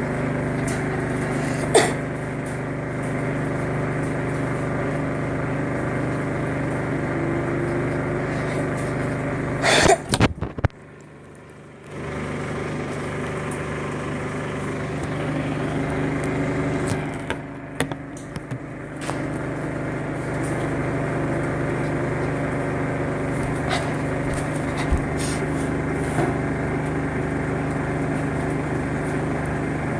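Samsung washing machine running a test-mode spin cycle: a steady motor and drum hum. A few sharp knocks come about ten seconds in, followed by a brief drop in loudness.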